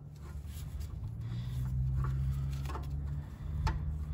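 Scattered metal clicks and scrapes of a wrench working a rusted tank bolt on an air compressor, over a steady low hum that grows louder through the first couple of seconds.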